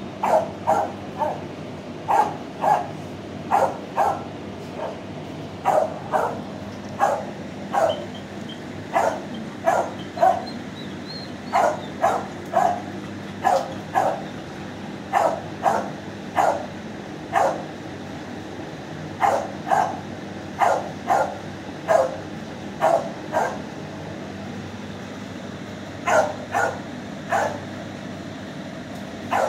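Dog barking repeatedly in short runs of two to four barks, with a break of a couple of seconds near the end, over a steady low hum.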